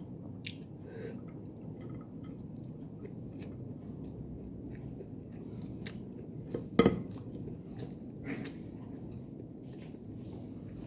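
Close-up mouth sounds of a person eating: soft chewing with scattered small wet clicks and smacks, and one louder brief sound about seven seconds in.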